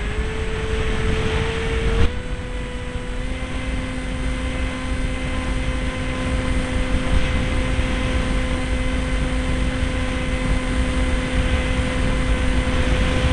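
Onboard sound of a radio-controlled SeaDart model seaplane in flight: its motor and propeller whine at a steady pitch, which steps up a little about two seconds in, over heavy wind rush on the camera's microphone.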